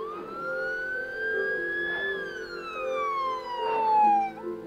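Siren sound effect standing in for an ambulance: one slow wail that rises for about two seconds and then falls for about two, over a low steady hum.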